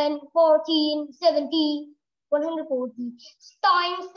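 A high child's voice singing with no accompaniment, in short phrases separated by brief silences.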